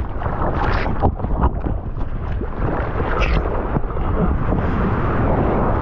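Wind buffeting the microphone over rushing, splashing sea water, with scattered brief splashes.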